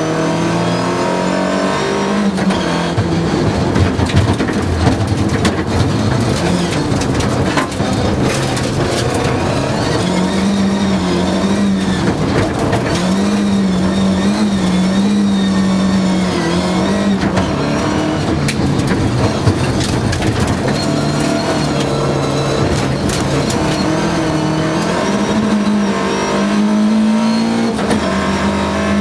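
Rally car engine heard from inside the cockpit, revving hard, its pitch rising and dropping with gear changes and lifts off the throttle. Scattered knocks and rattles come through as it runs over loose gravel.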